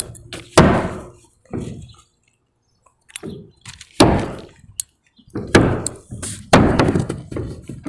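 Hammer blows driving nails through synthetic roof underlayment into the wooden roof deck: a run of about nine sharp, irregularly spaced strikes with a short pause about two seconds in.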